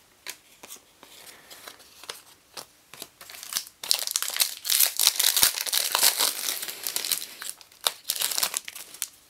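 A foil trading-card pack wrapper crinkling and tearing as it is opened by hand, mostly from about four seconds in, after a few light clicks of cards being handled.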